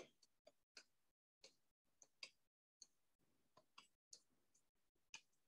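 Faint, irregular clicks of a pen tapping on the glass of an interactive touchscreen board during handwriting, about two a second.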